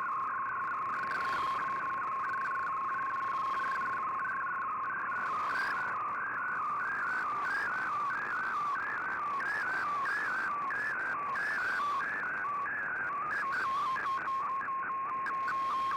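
Shortwave digital-mode data signal heard through a communications receiver: a steady tone under a warbling, rhythmic run of shifting tones. Near the end the warble quickens into rapid ticks, then stops and leaves the steady tone alone.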